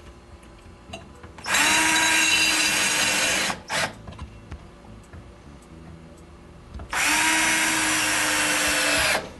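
Cordless drill/driver driving screws through a metal drawer-slide bracket into a cabinet panel. It makes two steady runs of about two seconds each, with a short trigger blip just after the first.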